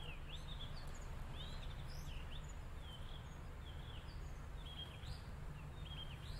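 Small birds chirping, a steady run of short high chirps and twitters, quiet over a low steady rumble, as in a field recording of birdsong.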